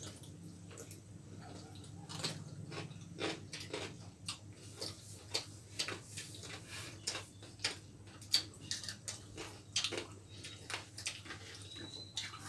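Close-up eating sounds of two people eating chilli chicken and roti by hand: irregular chewing, lip-smacking and mouth clicks, over a faint steady low hum.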